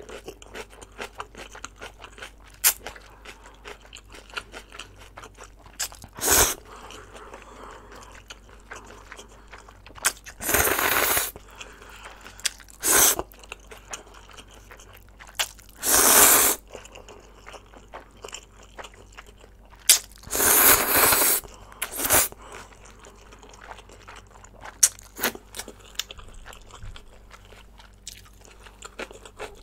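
Close-miked eating of saucy instant stir-fried noodles: about six loud slurps of noodles, each lasting half a second to a second, with steady wet chewing and small mouth clicks between them.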